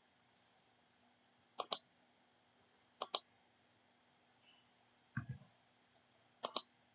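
Computer mouse clicks, mostly quick double clicks, four times about a second and a half apart; the third comes with a duller low thud.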